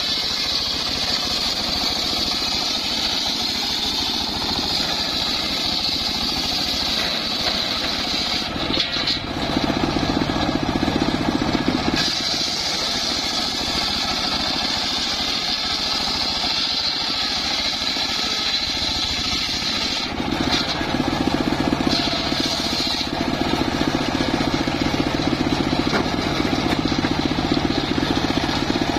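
Homemade engine-driven circular sawmill running steadily with a high whine. From about nine to twelve seconds in, and again from about twenty seconds on, it grows louder and rougher as the blade cuts through timber.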